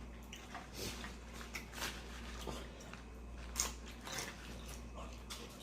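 Close-miked eating: a person chewing and biting nacho dip, with scattered short clicks and mouth smacks every half second or so.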